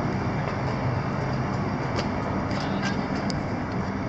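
A vehicle engine running steadily, a low hum under a broad noisy hiss, with a few faint ticks.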